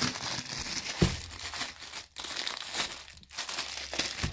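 Plastic packaging crinkling and rustling as the soundbar parts are handled during unboxing, with a short knock about a second in.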